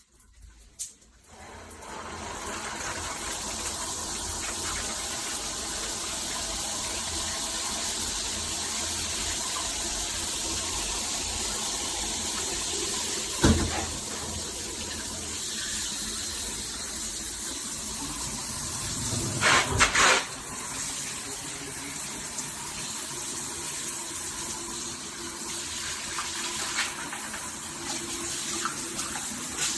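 Shower head spraying water in a steady rush, turned on about a second and a half in. There is a sharp knock about halfway through and a double knock a little later.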